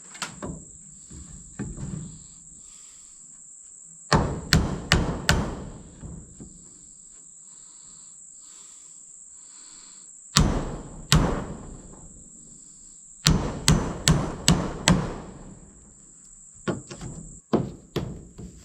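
Hammer blows on porch lumber in bursts of two to five strikes, with lighter knocks near the end. A cricket chirs steadily and close throughout.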